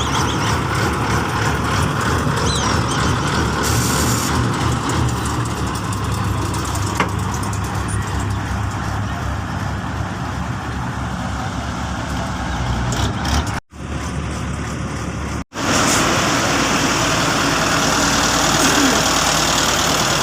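Engines of heavy road-paving machinery running steadily, with two brief dropouts about 13 and 15 seconds in.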